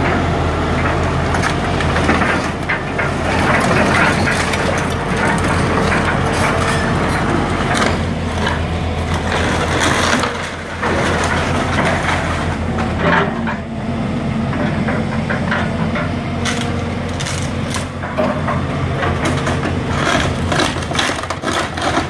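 Volvo tracked excavator's diesel engine running steadily while its bucket crushes and tears through the wood framing of a house. Repeated cracking and splintering of timber and crunching of debris sound over the engine.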